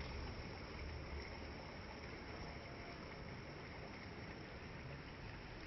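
Steady rushing of the water at Hebbe Falls, an even noise with a deep low rumble.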